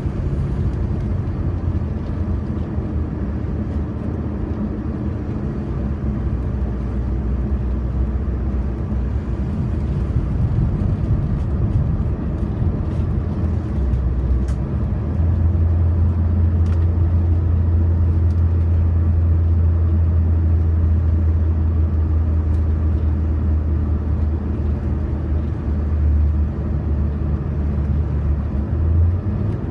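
Car driving, heard from inside the cabin: a steady low rumble of engine and tyres, with a deep drone that grows louder about halfway through and holds.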